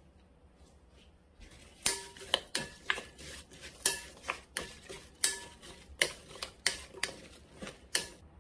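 Wooden spoon clacking against a glass mixing bowl as cut cucumber and apple pieces are tossed with chili powder. About fifteen sharp knocks start about two seconds in, each with a brief glassy ring.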